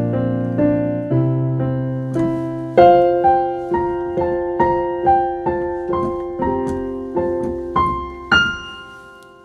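Piano playing a slow instrumental passage, single notes over low chords, closing on a chord struck about eight seconds in that fades away.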